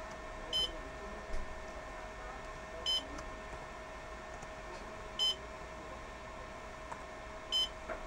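A short, high electronic beep repeating evenly about every two and a third seconds, four times, over a steady electrical hum, with a few faint laptop keyboard clicks between the beeps.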